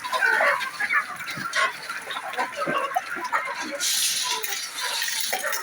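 A flock of chickens clucking and calling over one another, with a short hiss about four seconds in.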